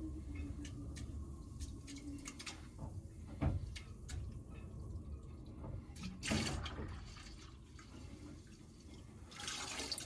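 Marine antifreeze being poured from a gallon jug into a 5-gallon bucket: a steady pour of liquid, with a few sharp knocks, the loudest about three and a half and six seconds in, and a brighter hiss near the end.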